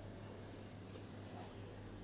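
Faint mouth sounds of chewing a mouthful of rice and mung bean soup, over a steady low hum.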